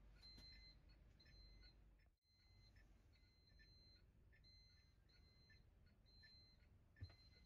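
Faint electronic beeping: a short high-pitched beep repeating about once a second over a low rumble, with a single thump near the end.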